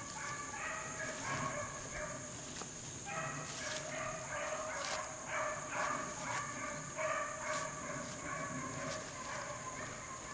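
A pack of beagles baying in chorus on a rabbit's trail, many cries overlapping almost without pause, with a short break about two and a half seconds in. A steady high-pitched whine runs underneath.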